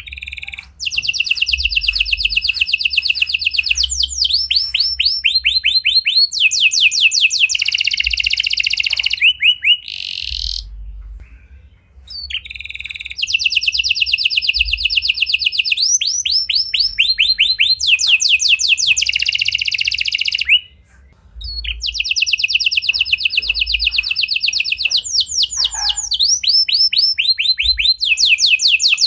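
Red-factor domestic canary singing long, fast trills of rapidly repeated high notes that change from phrase to phrase, with two brief pauses, about a third and two-thirds of the way through.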